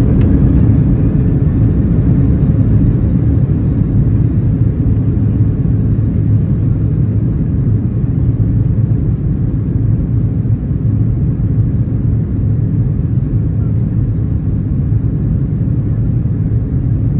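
Boeing 737-800 heard from inside the cabin while taxiing: a steady low rumble of the CFM56-7B engines at taxi power and the wheels rolling, with no spool-up.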